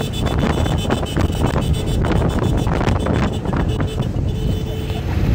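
Wind buffeting the microphone from an open-top car driving at speed, with the car's engine and road noise running beneath it.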